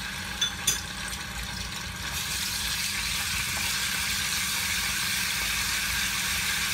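Ginger-garlic paste sizzling in hot oil in a kadhai as it is stirred with a wooden spatula, the sizzle growing a little louder about two seconds in. Two light knocks sound about half a second in.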